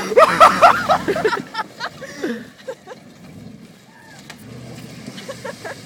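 Onlookers whooping and hollering loudly for about the first second and a half, then fainter scattered shouts, with a truck engine running faintly underneath.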